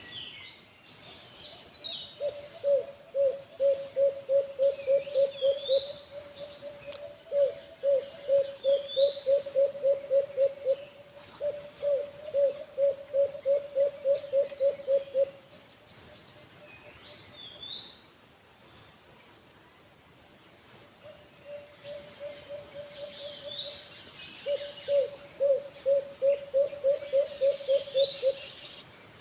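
Alimukon (a dove) calling: repeated rolling bouts of low, evenly spaced notes, about four a second, each bout lasting about three seconds with pauses between. Other small birds chirp high over it, and a steady high whine comes in about two-thirds of the way through.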